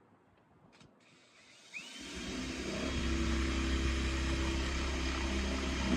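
Power drill with a 1/4-inch bit starting about two seconds in, building up and then running steadily as it drills a pilot hole in a steel door.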